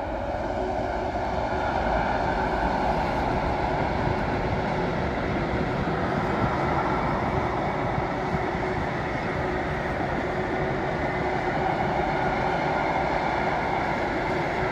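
Freight train hauled by a Class 66 diesel locomotive, its long rake of wagons rolling steadily past as a continuous rumble of wheels on rail.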